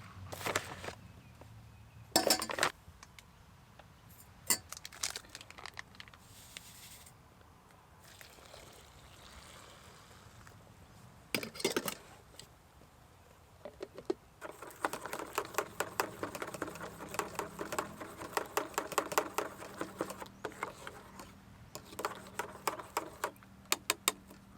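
Cups and utensils clinking while coffee is made: a few separate clinks and knocks, then about ten seconds of fast, continuous ringing clinks of a metal spoon against a mug.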